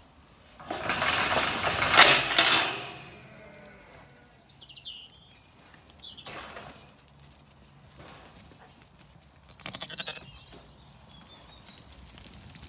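Metal field gate being unfastened and pulled open, a loud rattle and clatter lasting about two and a half seconds. After it come a few faint bleats from Zwartbles sheep as the flock moves through.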